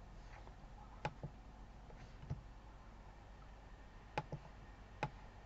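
A handful of sharp, isolated computer mouse clicks, about five, a second or so apart, over a faint steady hum.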